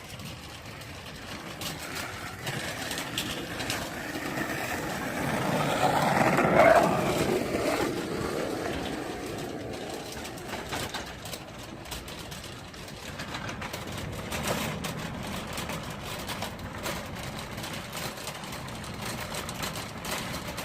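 Motor vehicle noise: engine and tyre sound that swells to its loudest about six to seven seconds in, as a vehicle passes close, then settles to a lower steady rumble.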